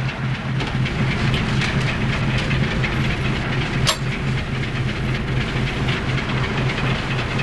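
A trawler's diesel engine running steadily, a low, even, rapid throb heard from inside the ship, with hiss over it. A single sharp knock about four seconds in.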